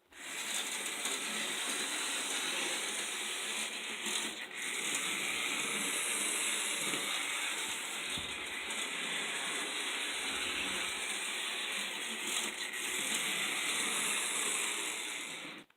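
Märklin 3000 HO model steam locomotive running on its metal track, a steady whirring and rattling of its small motor and wheels, dipping briefly twice. Its owner judges it to be running well, sounding well lubricated, but slowing a little over the points, which he puts down to crud on the contacts.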